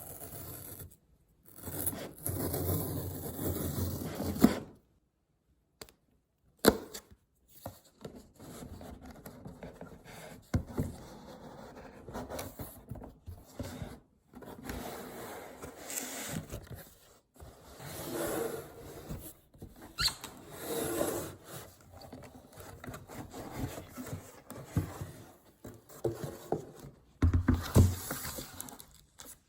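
Hands handling an iPad's retail packaging: irregular scraping and rubbing of box and wrapping, with a few sharp clicks.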